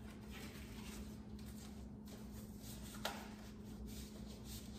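Faint rustling of a paper card and envelope being handled and opened, with one small tap about three seconds in, over a steady low hum.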